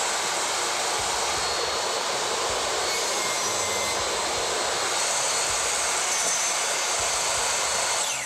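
DeWalt 8¼-inch table saw running at full speed with a steady high whine while a board is ripped through the blade. Right at the end it is switched off and the whine starts to fall as the blade winds down.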